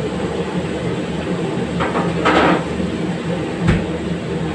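Steady roar of a commercial gas wok range with chicken sizzling in the wok. A brief louder rush comes about two seconds in, and there is a single metallic knock a little before the end.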